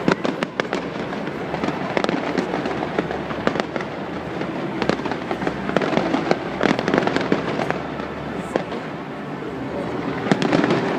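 Fireworks display: a continuous barrage of bangs and crackling, many reports overlapping, with no pause.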